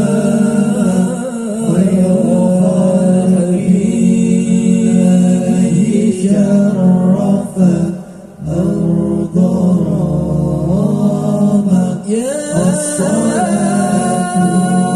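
A voice singing a drawn-out, bending melody over music, with a brief break about eight seconds in.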